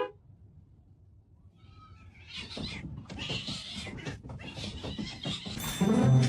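Domestic cat vocalizing: a short, faint meow about two seconds in, followed by several seconds of rough, noisy cat sounds.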